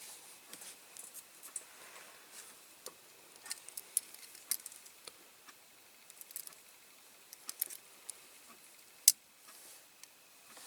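Scattered light clicks and clinks of small metal parts of a diecast model car being handled and fitted together, with one sharper click about nine seconds in.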